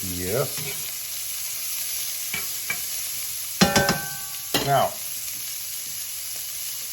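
Steak pieces sizzling as they fry in butter in a hot pan, a steady hiss, with a short clatter of a utensil against the pan about three and a half seconds in.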